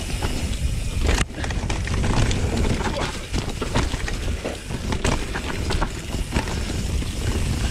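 Mountain bike rolling down a rough dirt and leaf-covered forest trail: tyres on dirt and dry leaves, and the bike rattling with many small knocks over bumps, with wind rumbling on the microphone.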